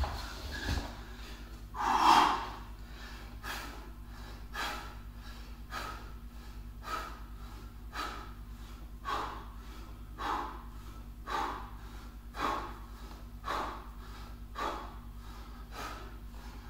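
A man breathing hard and rhythmically from exertion during a circuit workout, with sharp breaths about once a second. One louder, heavier breath comes about two seconds in.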